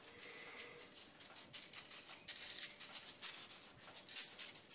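Salt shaken from a salt shaker over peeled potatoes on a parchment-lined baking tray: a faint, quick, irregular pattering of grains and a light rattle from the shaker.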